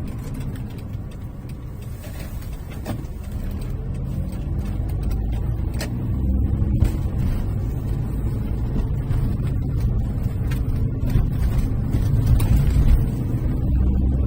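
Car engine and tyre noise heard during a drive, a low steady rumble. The engine note rises for a few seconds as the car picks up speed, with a couple of brief clicks along the way.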